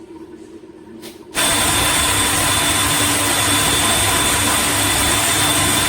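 A small electric kitchen appliance motor switches on abruptly about a second and a half in and runs steadily and loudly with a steady whine.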